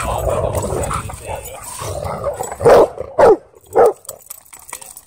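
Dogs snarling and scuffling in rough play-fighting, then three loud barks in quick succession about halfway through.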